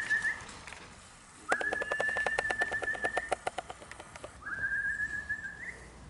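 A person whistles a steady high note three times, each held for a second or two and lifting slightly at the end, calling returning racing pigeons down into the loft. A rapid run of clicks sounds under the second whistle.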